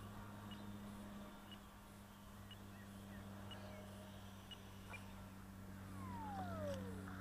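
Faint whine of a 64 mm 12-blade electric ducted fan on a Turnigy 2815 brushless motor, falling steeply in pitch near the end as the fan spools down after the model jet's belly landing. A steady low hum runs underneath.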